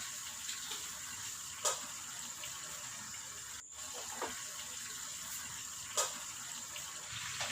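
Marinated chicken frying in hot sunflower oil in covered pans: a steady sizzle with two sharper pops of spitting oil.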